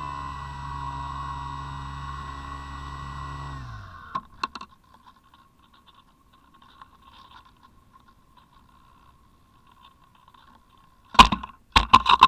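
Brushless electric motor and propeller of a Parkzone Radian Pro model glider running with a steady whine, heard from the onboard camera, then cutting off about four seconds in. Near the end come several loud thumps and scraping as the plane touches down and skids in the snow.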